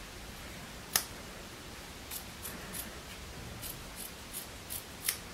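Small scissors snipping through the denim of black jeans at the knee, cutting a slit: one sharp snip about a second in, then a run of quick short snips.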